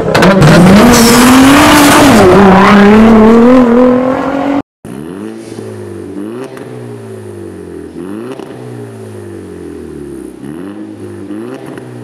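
For the first few seconds, a loud engine revving sound whose pitch rises and wavers, cutting off abruptly. After a brief gap, an Audi A1 1.4 TFSI's twin-charged (supercharger plus turbo) four-cylinder engine on a full aftermarket exhaust system is blipped repeatedly, its note rising and falling several times.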